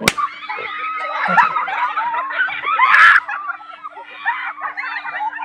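A group of women laughing, shrieking and calling out over one another, with one loud scream about three seconds in.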